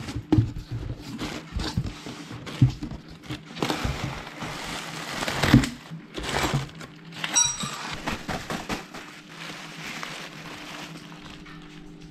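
Cardboard box and plastic packaging being handled: irregular rustling and crinkling of plastic bags and bubble wrap, with knocks against the cardboard. A short high clink about seven seconds in.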